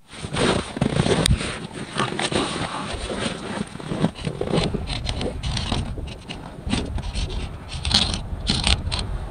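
Irregular scraping and crunching in short, uneven strokes, with sharper scrapes near the end.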